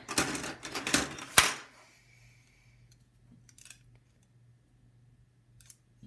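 Loose desktop RAM modules clattering against each other and the tabletop as a hand rummages through a pile of them, with one sharp click about a second and a half in. After that only a few faint clicks.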